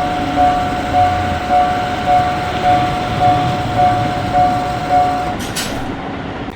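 Japanese level-crossing alarm ringing its two-tone electronic clang about twice a second over the rumble of a passing train; the alarm stops about five seconds in, a sign that the train has cleared the crossing.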